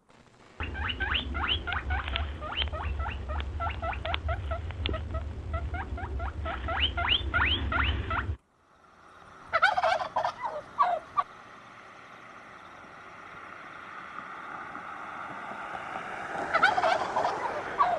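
Domestic fowl calling: a long run of rapid, rising calls that stops abruptly, followed by two short bursts of calls.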